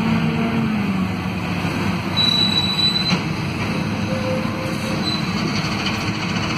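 City bus with a ZF Ecomat automatic transmission slowing down, heard from inside the cabin: the drivetrain hum drops in pitch about a second in, and a brief high squeal comes around two seconds in, as the gearbox downshifts from fourth toward first gear.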